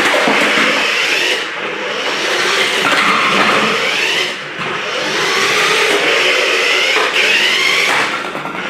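Toy remote-control car's small electric motor whining, its pitch rising and falling repeatedly as it speeds up and slows down, with its wheels rolling and skidding on the floor.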